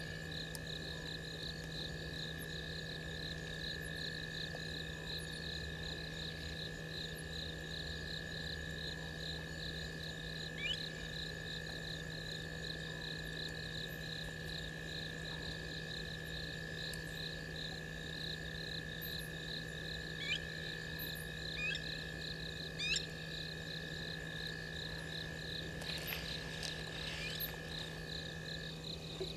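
Night insect chorus: crickets trilling in a fast, even pulse, over a steady high insect whine that stops near the end. A few short rising chirps come through in the second half.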